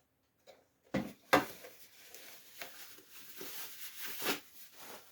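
Feeder parts and packaging being handled while unboxing: two sharp knocks about a second in, then a few seconds of rustling and small clicks.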